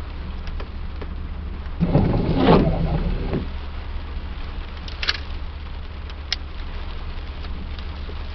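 Rain falling in a thunderstorm, over a steady low hum. About two seconds in comes a loud, crackling burst lasting about a second and a half, with a few sharp clicks later on.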